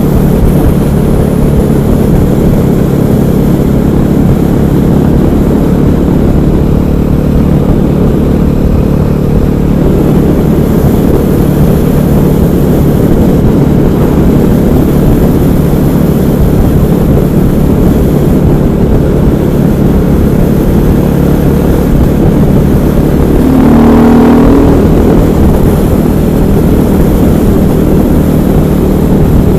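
KTM 500 EXC supermoto's single-cylinder four-stroke engine running steadily at a constant speed. Near the end, a brief louder moment with a rise in pitch.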